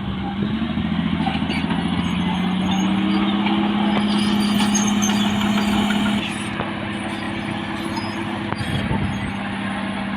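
Caterpillar D6R bulldozer's diesel engine working under load. Its steady note rises a little in the first couple of seconds and grows louder, then about six seconds in it drops back to a quieter steady run.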